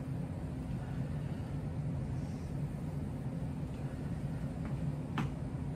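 A steady low mechanical hum, as of a running motor or fan, with one faint click near the end.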